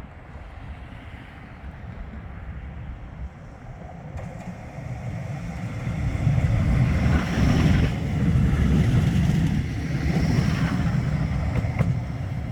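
Bombardier Flexity 2 tram passing close by: a rumble that builds over several seconds, stays loud, then eases slightly near the end, with a brief high whine twice.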